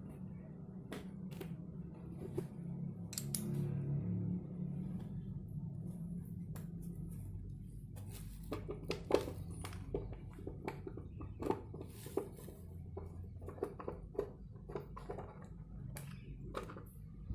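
Irregular clicks and light knocks of small hard parts being handled and set down, sparse at first and busier from about eight seconds in, over a low steady hum.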